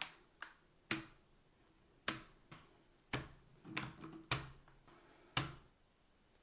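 An irregular series of about eight sharp clicks and knocks over five seconds, a few with a dull low thud, from a Kzzi K75 mechanical keyboard being handled.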